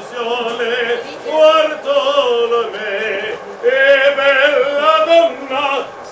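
A man singing solo, holding long notes that slide up and down in pitch, with short breaks for breath.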